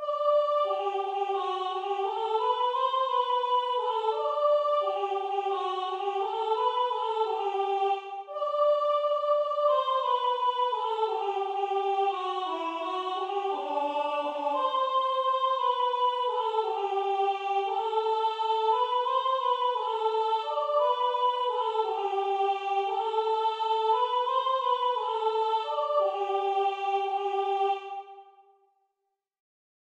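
Soprano part of a four-part choral piece heard alone as a single sung melody line in triple time, with a short break about eight seconds in and a held final note near the end.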